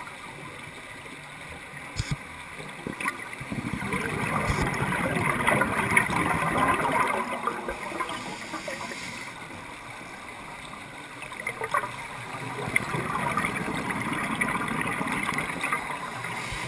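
Scuba diver's exhaled air bubbling out of the regulator underwater: two long, gurgling exhalations of a few seconds each, with quieter stretches between.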